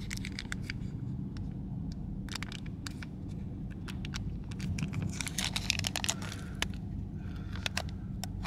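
Foil lid of a plastic ketchup dip pot being picked at and peeled back by fingers, making crackling, tearing clicks in irregular clusters. A steady low car-cabin rumble runs underneath.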